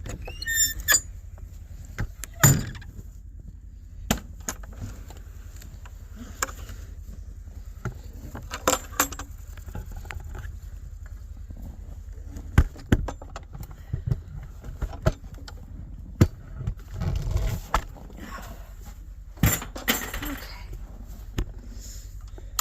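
Metal clanks, knocks and rattles as a barn door is worked open, with a short squeak near the start and a scraping drag about three quarters of the way through.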